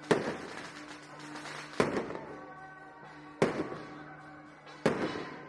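Four loud single firecracker bangs, about one and a half seconds apart, each fading out quickly, over steady music.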